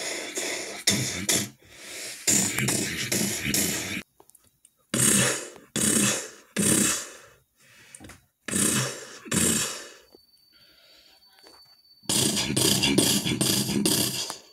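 Gunfire sound effects made with the mouth for a toy battle: a string of short, noisy bursts like rifle volleys. A longer sustained burst of automatic fire comes near the end.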